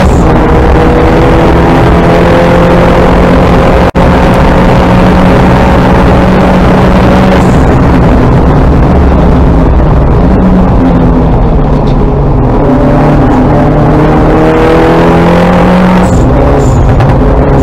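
In-cabin sound of a Mini John Cooper Works Coupe race car's turbocharged four-cylinder engine at racing speed, loud over road and wind roar. The engine note climbs steadily under acceleration, drops back about halfway through, then builds again near the end.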